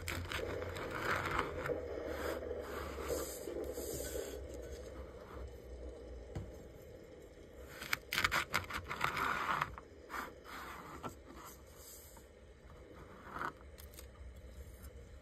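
Kinetic sand crunching and scraping as metal cookie cutters are pressed through it and cut pieces are worked loose. A dense grainy crunch for the first few seconds, then a louder cluster of sharp crackles about eight seconds in, followed by a few scattered ticks.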